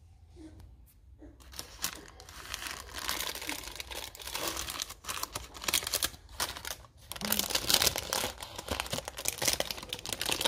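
Baking paper crinkling and rustling as hands pull it back from the sides of a freshly baked cake in its pan, starting about a second and a half in.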